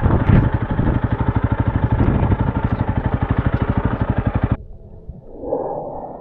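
Motorcycle engine idling with a quick, even pulse, cutting off abruptly about four and a half seconds in.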